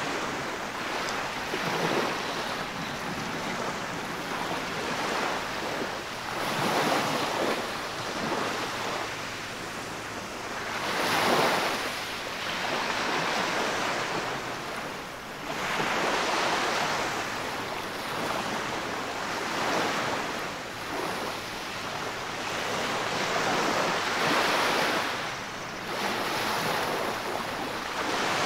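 Small waves washing up a sandy beach and sliding back, the shallow foamy water swelling and easing about every four to five seconds.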